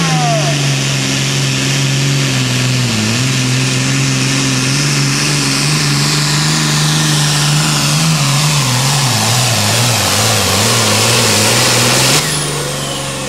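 John Deere Super Farm pulling tractor's diesel engine running at full throttle under the load of the pulling sled, over a strong high hiss. The engine note dips about three seconds in and wavers up and down later as it works against the sled. The sound drops off suddenly near the end.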